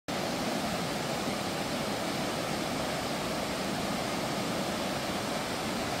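Mountain stream rushing over rocky rapids: a steady, even rush of water.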